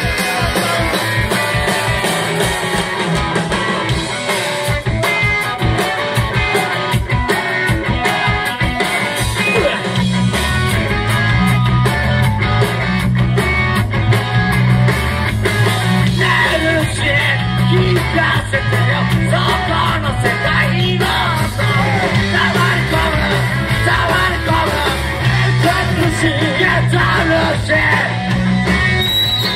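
Live rock band playing: drums, cymbals and electric guitars, with singing. The bass comes in strongly about a third of the way through and the whole band plays on together.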